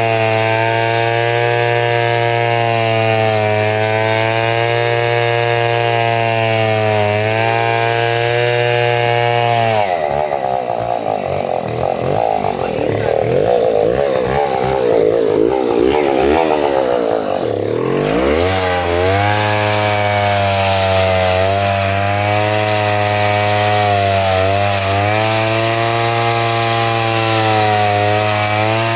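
Chainsaw engine running hard as it cuts coconut trunk into lumber, its pitch dipping slightly under load. About ten seconds in the engine pitch drops sharply and runs rough and uneven for several seconds, then climbs back to a steady cutting note.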